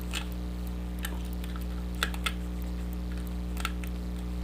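Scattered small clicks of a hook pick and tension wrench working the pins of a pin-tumbler challenge lock held in a false set, the two sharpest about two seconds in, over a steady low hum.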